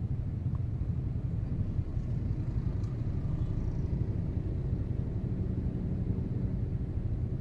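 Vehicle engine idling while stopped, a steady low rumble.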